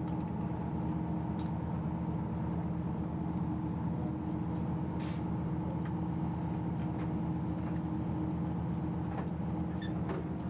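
Boat engine running steadily, an even hum with a few faint clicks over it.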